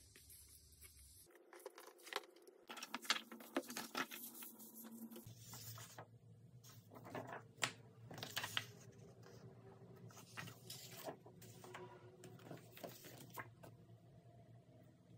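Paper prints and a plastic-wrapped record sleeve handled and slid over one another: faint, irregular rustling, crinkling and scraping.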